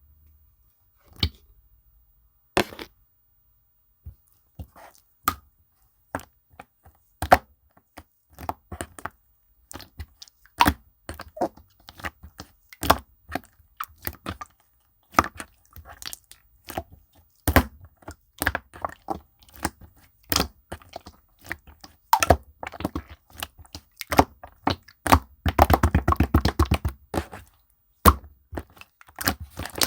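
Slime being squished and pressed by hand, giving sharp, irregular popping and clicking sounds as air pockets burst. The pops come sparsely at first and grow more frequent, with a quick run of rapid crackling near the end.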